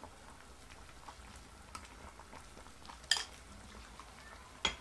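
A metal ladle stirring vegetable soup in a metal pot, with soft scraping and small clicks over a faint simmer. The ladle strikes the pot with a ringing clink about three seconds in and again near the end.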